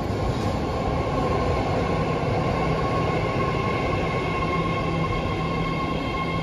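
BART Fleet of the Future subway train running, a steady rumble with a high whine held throughout.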